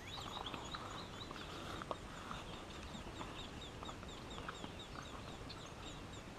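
Birds calling: a steady run of short, high chirps repeating about three times a second, over a low rumbling background.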